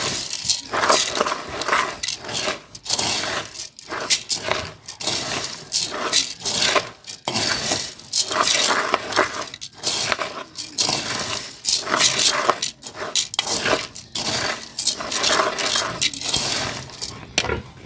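A metal spoon stirring dry pig-feed pellets in a metal pot: the pellets rattle and the spoon scrapes and clinks against the pot in a continuous, irregular run.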